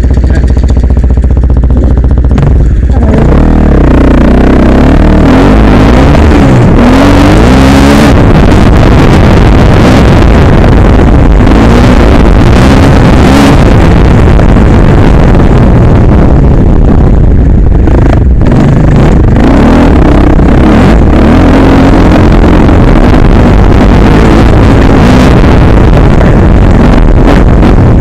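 Enduro motorcycle engine revving up and down as the bike is ridden over a rough dirt trail, very loud on the on-board microphone.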